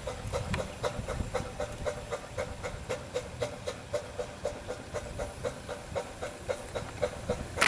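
5/8-scale Wood Brothers steam traction engine under way, its exhaust chuffing steadily at about four beats a second with a hiss of steam between the beats.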